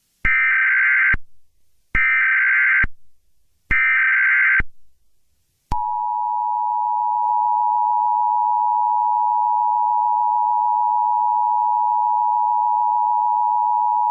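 Emergency Alert System tones: three short bursts of SAME header data, each just under a second, then the steady two-tone EAS attention signal held for about eight seconds, the signal that an emergency message follows.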